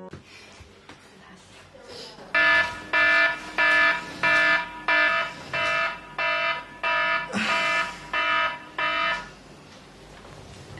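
Electronic alarm beeping in a rapid repeating pattern, about a dozen beeps at roughly two a second, then stopping.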